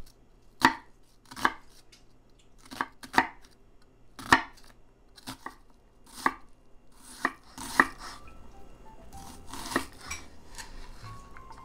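Chef's knife dicing an onion on a wooden cutting board: about a dozen separate, irregularly spaced chops, each a sharp knock of the blade on the board.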